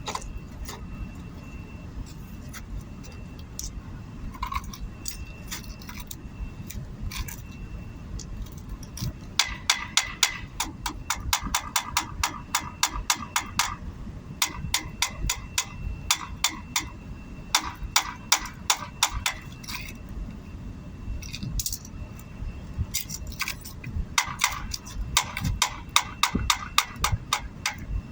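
Runs of quick metallic clicks, about five a second with a ringing note, from a steel tool working on pipe fittings. A steady low rumble lies underneath.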